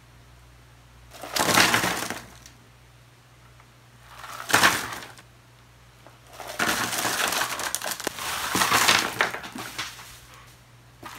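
Wrapped hard candies and lollipops poured out and spread by hand, wrappers crinkling and candies clattering. It comes in three bursts: two short ones in the first half and a longer one in the second half.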